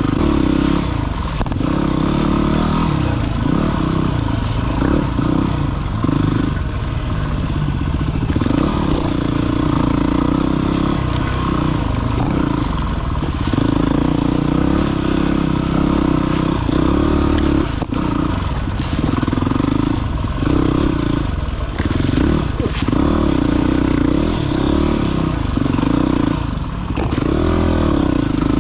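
Dirt bike's single-cylinder engine running under the rider, its note rising and falling with the throttle over a rough trail, with clatter and knocks from the bike over rocks and branches.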